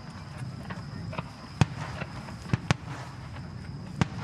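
Fireworks shells bursting in the sky: a sharp bang about a second and a half in, two more in quick succession near the middle, and another near the end, with faint crackling between them.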